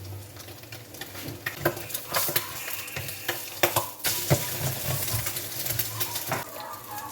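Kitchen sounds: a string of clinks and knocks, like a utensil working in a pan, with a hiss from about four seconds in until shortly after six.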